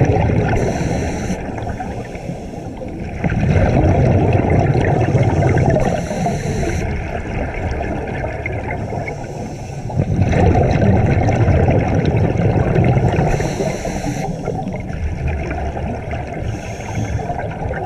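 Scuba regulator breathing underwater: three long rumbling bursts of exhaled bubbles, with short hisses of inhalation between them.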